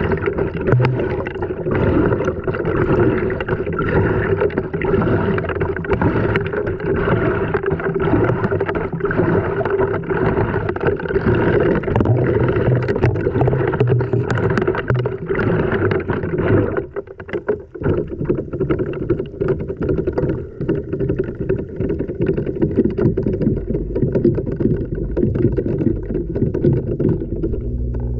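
Water sloshing and laundry tumbling inside an LG washing machine's drum, heard from a camera riding inside it, with frequent knocks as things hit the drum. The churning drops out for about a second roughly two-thirds of the way through, then resumes.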